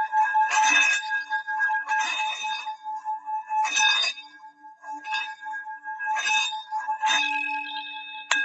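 Metal Bali singing bowl tuned to D ringing with a steady low hum and several higher overtones, played with a mallet in a series of irregular strokes about a second apart. One sharp strike comes near the end.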